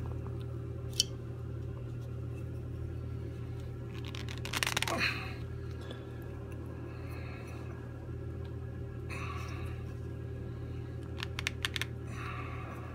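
Hands working the rotor of a Grundfos Magna3 circulator pump with a rag while turning it back and forth to free the stuck impeller: cloth rubbing, light clicks, and a louder cluster of clicks and a scrape about five seconds in. A steady low mechanical hum runs underneath.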